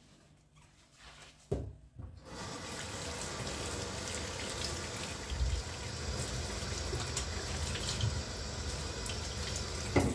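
Tap water running steadily into a sink for about eight seconds. There is a knock about a second and a half in, just before the water starts, and another as it stops.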